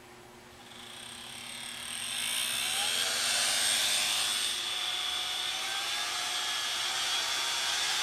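Hair-dryer motor and large impeller fan spinning up from rest, its whine rising in pitch and the rush of air building over about two seconds, then running steadily with a high whine.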